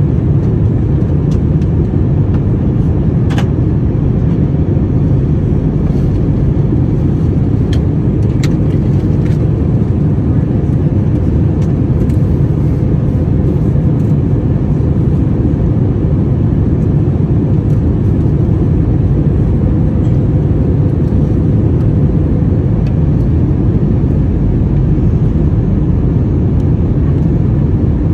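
Steady low rumble of engines and rushing air inside the cabin of an Airbus A321-200 on approach, with a faint steady hum and a few light clicks.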